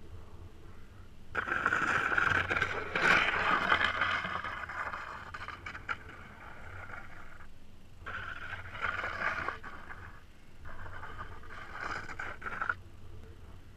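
A skateboard strapped to a paraglider pilot's feet scraping across stony, gravelly ground, in three spells: a long, loud one starting about a second and a half in, then two shorter ones in the second half.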